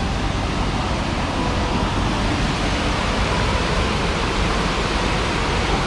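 Steady rushing roar of Tahquamenon Falls, a big river waterfall, heard as a dense, even wash of noise.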